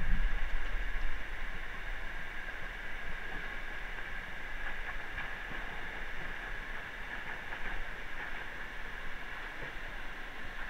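Steady rush of flowing stream water, a little louder in the first second or two and then holding level.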